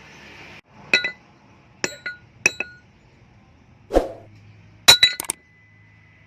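Small hard objects clinking sharply, each strike with a brief ringing note, in small clusters about a second in, around two seconds, and a tight run near five seconds; a duller knock about four seconds in, and a faint ringing note lingers after the last clinks. A soft hiss cuts off just after the start.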